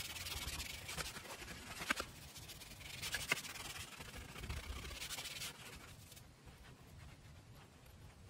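A small scrubber brushing the grimy vinyl seat back of a 1970 Buick GS in two spells of scratchy strokes, then softer wiping with a microfiber cloth near the end.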